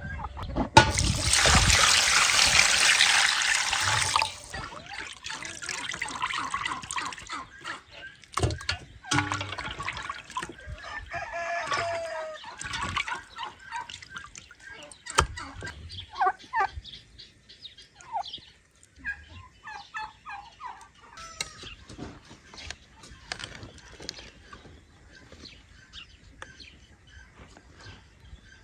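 Chickens clucking and calling among scattered knocks and clicks. A loud hissing rush lasts about three seconds near the start.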